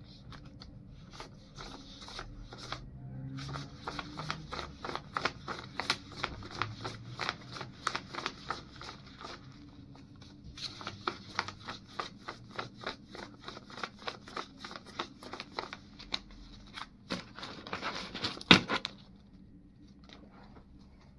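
A wad of British pound banknotes being counted by hand: each note flicked off with a crisp snap, in two long runs of quick clicks a few a second, then one loud snap of the notes near the end.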